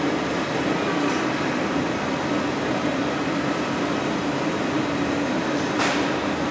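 Steady roar of a glassblowing studio's gas-fired glory holes, furnaces and fans running together: a constant hum under a broad rushing noise. A single short, sharp click near the end.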